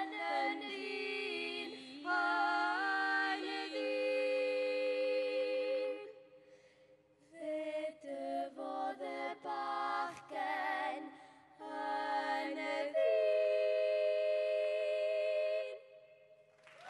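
Three girls singing unaccompanied in harmony, with a short break about six seconds in, ending on a long held chord.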